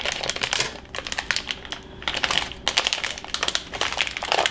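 Plastic pizza-crust wrapper being cut with scissors and pulled open, crinkling and rustling in quick, irregular clicks that come in clusters.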